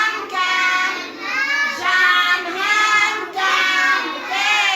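Children singing a song in long held notes, with a short break between phrases.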